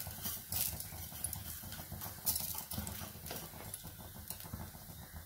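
Faint, irregular crackling and popping of a tempering of mustard seeds, urad dal, dried red chillies, curry leaves and grated coconut frying in oil in an aluminium kadai, over a low steady hum.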